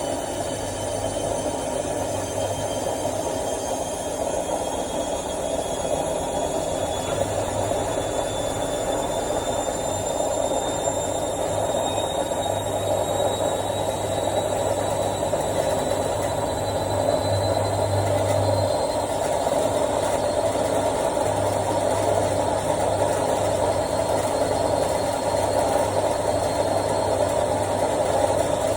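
Washing machine in its spin cycle, the drum still speeding up toward full speed: a steady whirring hum with a high whine that slowly rises in pitch as the spin gets faster and a little louder.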